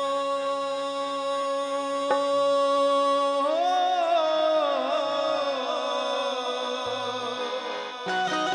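Male singer with harmonium performing a Gangaur devotional song: a long held note, then a wordless, ornamented vocal line that bends up and down from about a third of the way in. Percussion comes in with a beat near the end.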